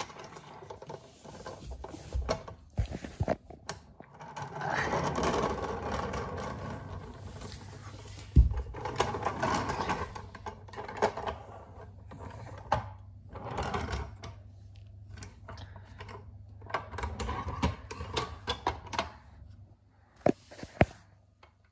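A Lionel O scale model freight car being handled on a vinyl floor: irregular clicks, knocks and scraping of its plastic body and metal wheels and trucks as it is moved about and turned over.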